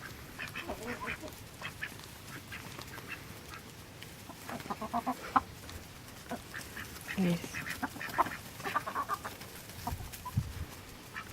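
Backyard poultry, ducks and chickens, calling on and off with short quacks and clucks, with a busier run of calls about halfway through.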